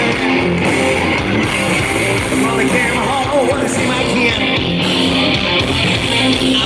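Live rock band playing, with strummed guitar to the fore.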